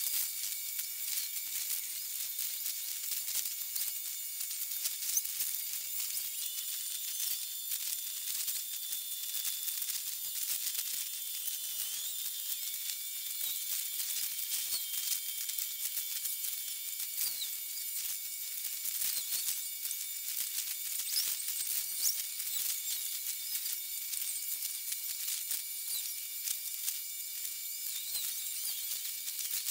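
Dock and machinery sound sped up many times over by time-lapse, turned into a steady high hiss full of rapid crackling clicks, with faint thin whistling tones that come and go.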